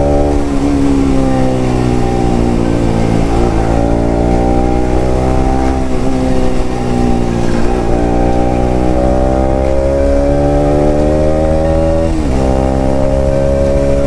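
Bajaj Pulsar RS200's single-cylinder engine under way, heard through its aftermarket exhaust. The engine note climbs as the bike accelerates, with short sharp dips about four times at the gear changes.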